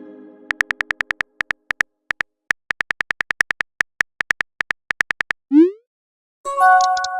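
Smartphone texting sound effects: a run of quick, short keyboard typing ticks, then a short rising swoop of a message being sent just before the end. A new-message notification chime follows, ringing and fading.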